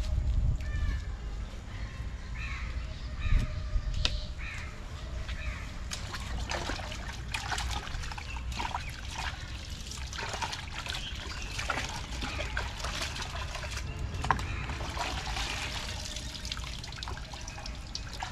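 Water splashing and trickling in a plastic bucket as hands wash pieces of goat meat, in irregular short splashes starting a few seconds in.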